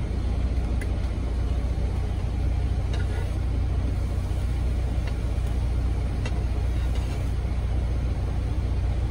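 Semi-truck's diesel engine idling, a steady low rumble heard inside the cab. A few faint clicks of a metal spatula against the griddle come through over it.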